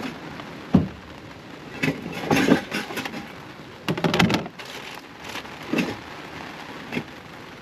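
Steady rain hiss with a series of irregular knocks and clattering, the busiest clatters about two and four seconds in.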